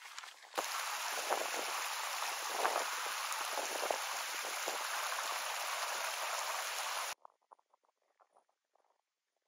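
Small snowmelt mountain stream rushing over stones, a steady loud splashing rush that starts suddenly about half a second in. It cuts off abruptly after about seven seconds, leaving only faint soft ticks.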